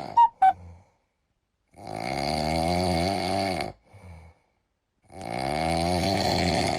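Snoring: two long snores, each lasting about two seconds, the second starting about five seconds in. A few short tones come just before them.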